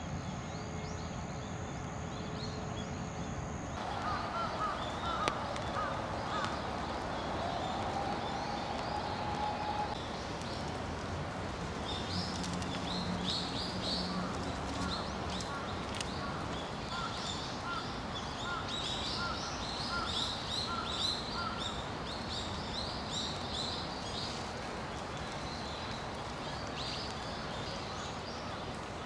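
Outdoor ambience with a steady background hum and small birds chirping and calling, busiest in the middle. Partway through, a series of short notes repeats evenly, about two a second.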